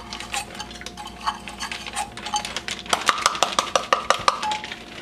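A stainless steel measuring cup shaken upside down over a ceramic slow cooker crock, frozen pineapple chunks clinking out against the metal. The clinks are scattered at first, then come in a quick run about three seconds in.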